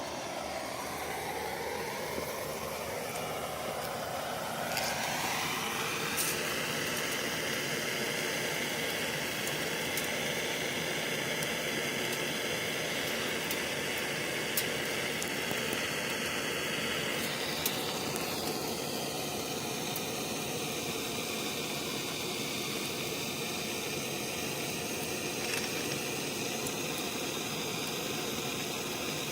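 Glowing-hot metal gear hissing and sizzling as it melts into cough drops. A whistling tone rises over a few seconds, holds steady, and drops away about eighteen seconds in.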